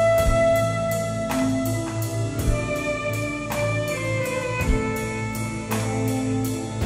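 A live rock band playing an instrumental passage. Held melodic notes sit over a steady bass, with the drum kit keeping time: quick cymbal ticks several times a second and a heavier accent about once a second.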